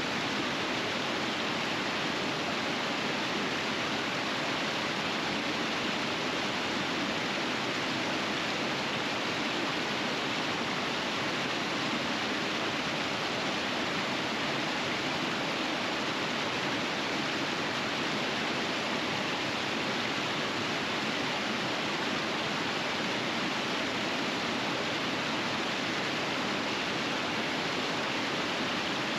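River water rushing over rapids, a steady, even rush with no change.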